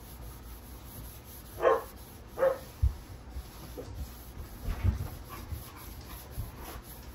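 A dog barking: two short barks less than a second apart, then fainter ones, with a couple of dull low thumps.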